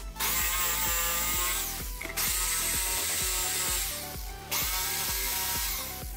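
Makita electric jigsaw cutting through a wooden cutting board in three bursts of about two seconds each, its pitch rising at the start of each burst as the motor spins up. Background music plays underneath.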